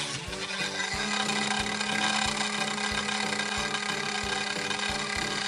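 Small battery-powered DC motor spinning a plastic propeller at full speed, a steady whirr, under background music with a steady beat.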